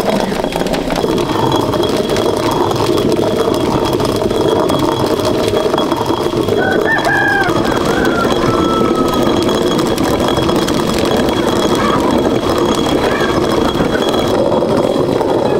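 Hand-turned stone quern grinding dried corn kernels: a steady, loud grinding rumble of stone turning on stone. A rooster crows in the background about seven seconds in.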